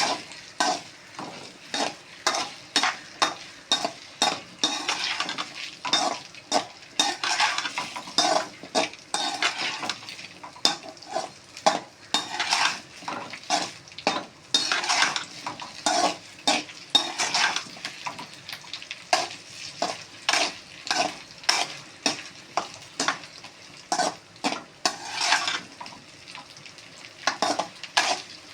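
Okra frying in sesame oil in a kadai, sizzling, while a spatula stirs it in repeated scraping, tapping strokes against the pan, roughly two a second.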